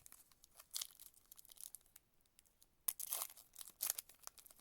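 Wrapper of a baseball trading card pack being torn open and crinkled by hand. There are faint rustles, then a louder burst of crackling about three seconds in.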